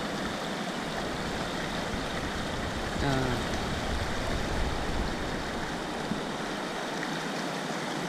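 Shallow mountain stream rushing over rocks in a steady, even noise.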